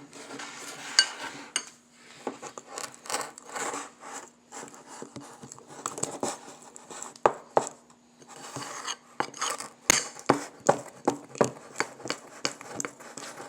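A utensil scraping and clinking against a bowl in quick, irregular strokes as melted gummies are stirred into cornstarch and powdered sugar.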